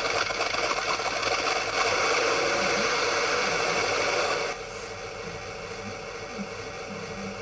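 Small 12 V 30 mm fan fitted in place of the pump motor on a Heng Long RC tank smoke unit, running with a loud, even whir. About four and a half seconds in it drops suddenly to a quieter, steady level.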